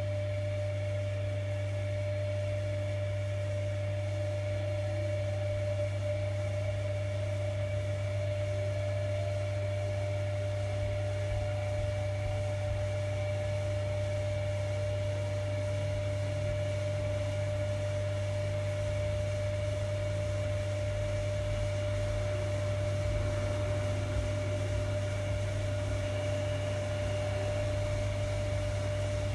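Primus RS16 commercial washer-extractor giving a steady low electrical hum with a constant mid-pitched whine above it, unchanging throughout.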